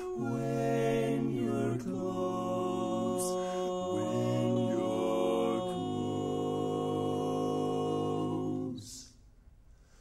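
Barbershop quartet singing a cappella in four-part close harmony, holding sustained chords that shift with the moving inner parts. The singing stops about nine seconds in for a short pause.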